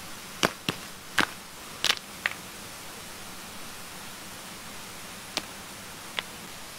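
Rocks clacking sharply as they are set down on other stones and gravel: five quick knocks in the first two and a half seconds, then two more near the end. A steady hiss of rushing stream water runs underneath.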